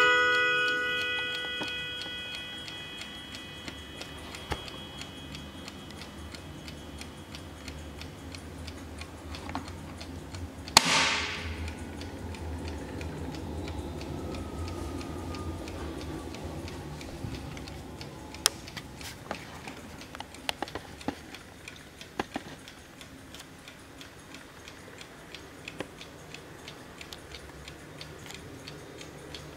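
Hermle mantel clock's chime rods ringing out and fading over the first couple of seconds after striking the hour, then the clock movement ticking steadily. A single sharp knock comes about eleven seconds in.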